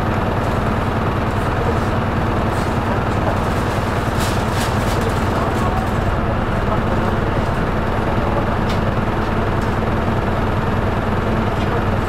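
Hino Poncho small bus's diesel engine running, heard inside the passenger cabin as a steady hum, with a few light rattles.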